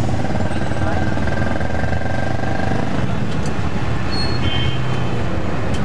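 Inside a moving Ambassador taxi with its windows open: the car's engine hums steadily under the noise of surrounding city traffic.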